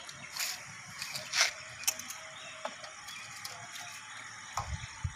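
PVC pipe and fittings being handled and pushed together: scattered short scrapes and clicks of plastic, the loudest about a second and a half in, with a few dull knocks near the end.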